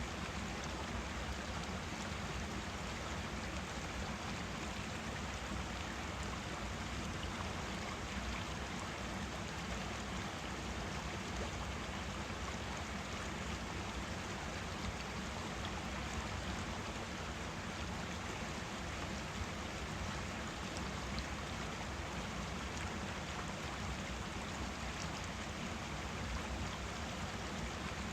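Forest stream flowing, a steady rushing of water with no breaks.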